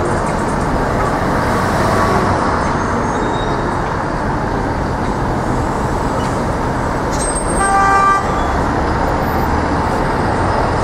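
Busy city street traffic: a steady wash of engine and tyre noise, with a coach bus pulling past close by in the second half. A vehicle horn toots once, briefly, about seven and a half seconds in.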